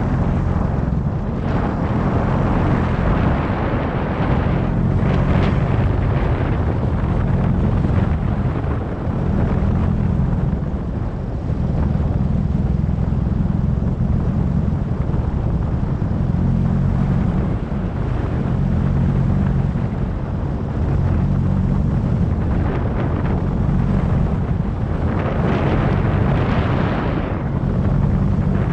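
2017 Subaru WRX's turbocharged flat-four engine running, its low rumble pulsing unevenly, with a rushing hiss that swells briefly twice. The owner describes a rough, choking idle and suspects a boost or vacuum leak after the charge pipe and intercooler swap.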